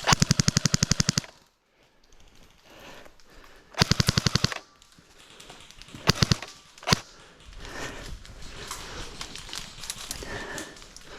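Airsoft gun firing rapid full-auto bursts: one burst of about a second at the start and another about four seconds in, then a few single sharp cracks around six to seven seconds in.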